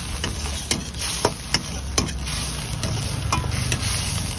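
A steel ladle scraping and clanking against an iron wok as chicken, onions and chillies are stir-fried in sizzling oil. The clanks come irregularly, about every half second, over a steady hiss and a low rumble underneath.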